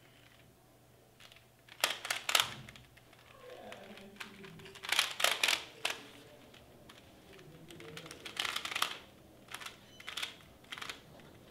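A 3x3 Rubik's cube being turned quickly by hand, its plastic layers clicking and clacking in short flurries with brief pauses between.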